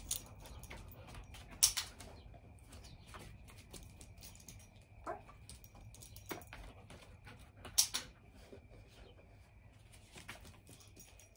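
A dog's claws ticking on brick paving as it runs about and steps onto a foam platform, with two sharp, loud clicks, one about two seconds in and one about eight seconds in.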